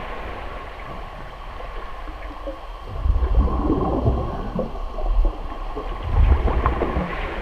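Humpback whale vocalizing underwater: low rumbling calls that swell about three seconds in and again near six seconds, with short, higher sounds in between.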